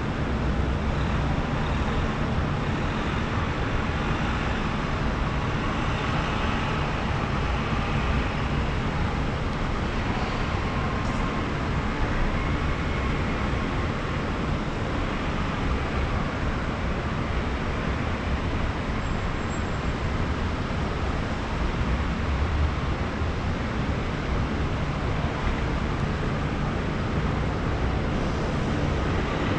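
Steady din of city traffic from the streets far below: engines and tyres blended into one even wash, with no single vehicle standing out.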